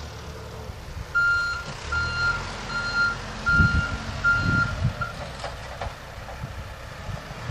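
Reversing alarm of a JCB backhoe loader beeping about six times, roughly one and a half beeps a second, then stopping about five seconds in, with the machine's engine running low underneath.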